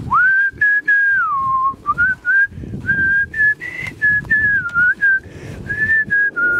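A person whistling a tune: clear single notes and slides that start with an upward swoop, over footsteps rustling through dry fallen leaves.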